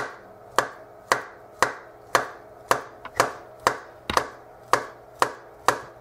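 A chef's knife slicing through a banana and knocking on a wooden cutting board, a sharp tap about twice a second in a steady rhythm.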